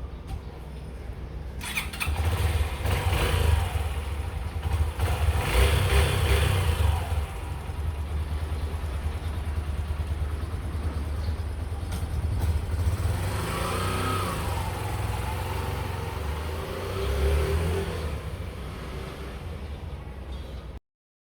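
Yamaha YB125 SP's small single-cylinder four-stroke engine running, getting louder about two seconds in and rising and falling in level a few times as the throttle is worked. The sound cuts off suddenly near the end.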